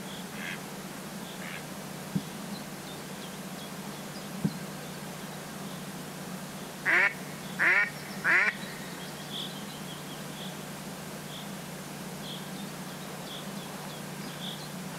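Duck quacking: a few faint quacks at the start, then three loud quacks about two-thirds of a second apart, each falling in pitch.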